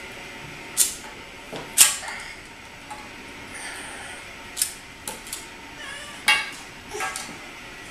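Small toys clicking and clinking against a glass tabletop as they are tapped and set down: about seven sharp knocks spread unevenly, the loudest about two seconds in.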